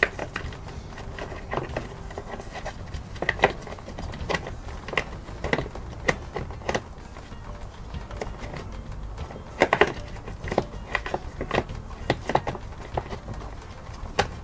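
Irregular small clicks and rattles of a strap and its buckle being threaded through and tightened at the back of a folded Toyota Land Cruiser 100 series second-row seat, with a quick cluster of louder clicks about ten seconds in.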